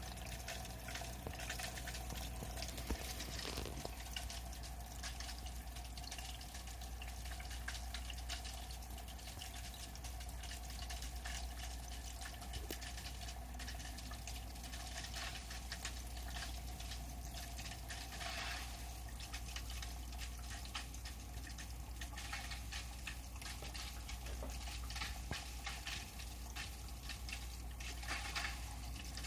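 Kotobuki Profit Filter Big hang-on-back aquarium filter running, with a steady low hum, trickling water and a constant fine crackling. The impeller keeps drawing in air that leaks through the flow-adjustment knob, so the filter runs noisily instead of quietly. A few louder surges come about three seconds in, midway and near the end.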